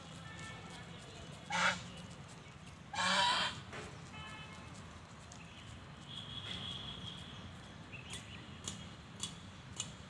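Domestic geese honking: two loud honks about one and a half and three seconds in, the second longer, with fainter calls at other times.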